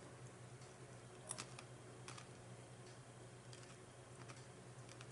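Near silence, with a handful of faint, irregular clicks and taps.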